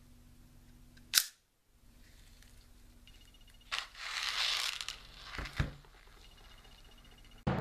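Handling of a metal-and-plastic CO2 BB magazine: a sharp click about a second in, a brief rustle a few seconds later, then two knocks as the magazine is set down on a table. Music comes in at the very end.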